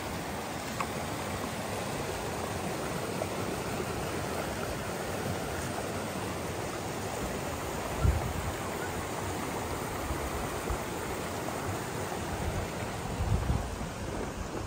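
A flowing stream: a steady, even rushing of water. A brief low thump sounds about eight seconds in.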